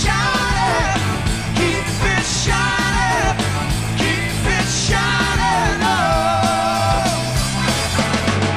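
Rock band playing live: a male lead singer over bass guitar and drums, holding one long sung note near the end.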